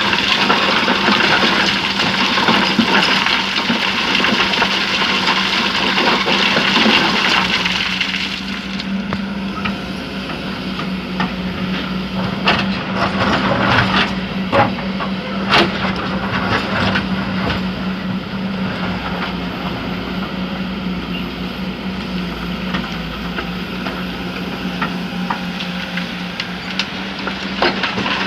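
Kobelco SK200 excavator's diesel engine running with a steady hum. For the first eight seconds a loud rush of sand pours from the bucket. After that the engine goes on under a lower rumble, with a few sharp knocks around the middle.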